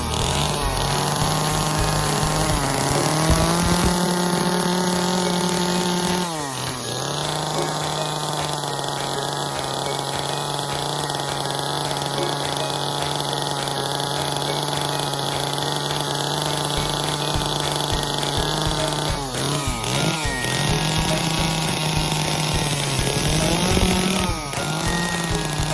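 Small chainsaw running at high revs while carving, its engine note steady, with sharp dips in pitch that recover about six seconds in and twice near the end.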